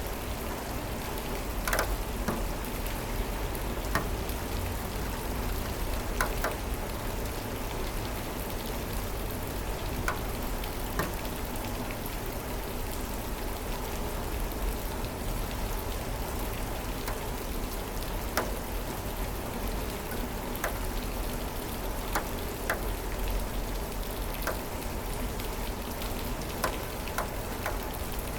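Steady rain falling, with scattered individual drops hitting hard about every second or two.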